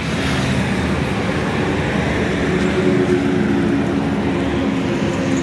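Steady engine drone and road noise of passing motor traffic.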